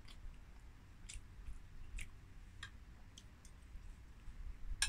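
A person chewing a mouthful of stir-fried venison, with a few faint soft clicks of mouth and cutlery, and one sharper click near the end.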